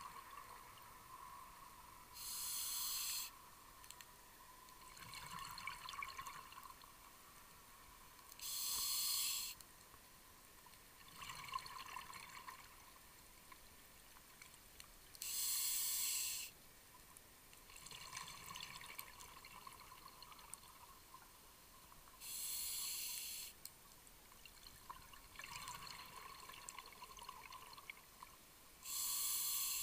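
Scuba diver breathing through a regulator underwater, heard as a steady rhythm of about one breath every six and a half seconds: a short, even hiss on each inhalation, then a gurgling rush of exhaled bubbles about three seconds later.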